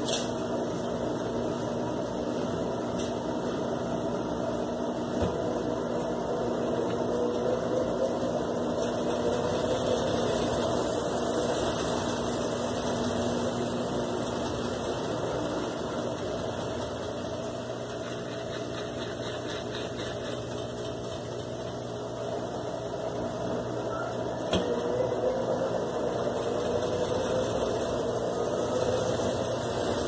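Consul Maré CWL10 top-loading washing machine on its spin cycle: the motor hums steadily as the basket spins at speed.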